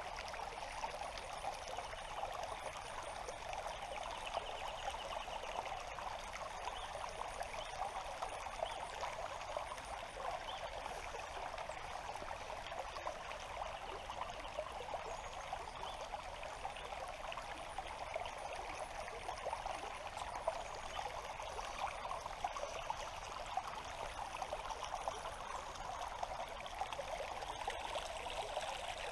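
River water flowing and trickling steadily, an even, unchanging rush of running water.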